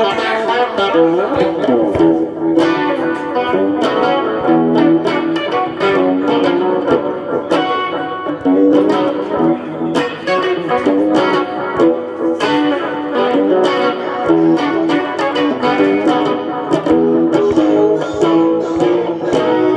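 Music led by a guitar, playing runs of plucked notes over a steady pulse.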